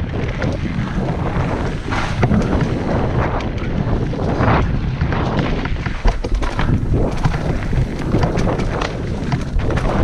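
Mountain bike riding down a rough, rooty trail: wind buffeting the microphone over a low rumble of tyres on dirt, with many sharp rattles and knocks as the bike hits roots.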